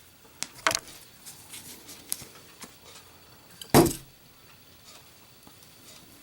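A few faint clicks, then a little under four seconds in a single sharp impact as a lit chrome-cased Zippo lighter is dropped onto a target in a drop test.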